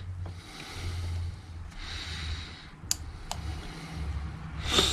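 A man breathing heavily through his nose in three long breaths while prying at a rusted bicycle headset bearing with a small metal pick, with a few sharp little clicks of metal on the bearing about three seconds in and near the end.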